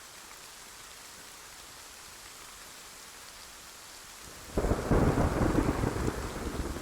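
Steady rain hiss, then about four and a half seconds in a sudden loud clap of thunder that rumbles on.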